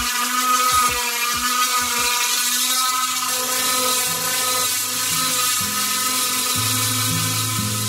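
Electric random orbital sander running steadily on an oak board, a constant motor whine, under background music with a drum beat that gives way to a bass line about three seconds in.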